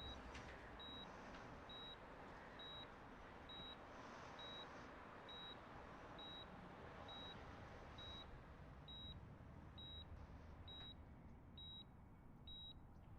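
A medical monitor's soft, high electronic beep repeating steadily about once a second, over faint room hiss.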